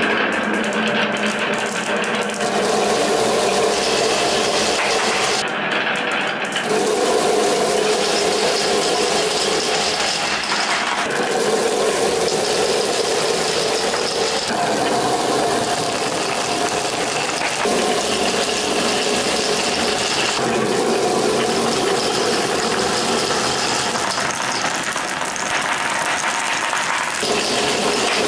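Many glass marbles rolling and clattering down wooden marble-run tracks and through corrugated plastic pop tubes: a dense, continuous rattle whose pitch shifts every few seconds as the track changes.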